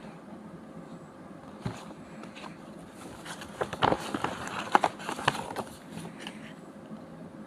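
Packaging being handled and opened by hand: a run of sharp clicks and crackling rustles in the middle, with scattered softer handling noises around it.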